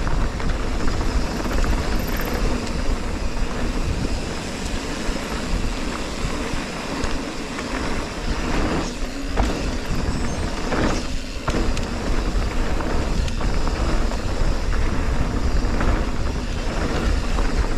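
Wind buffeting the microphone over the steady low rumble of a mountain bike's tyres on a dirt trail, with a few sharper knocks from the bike as it rides over bumps.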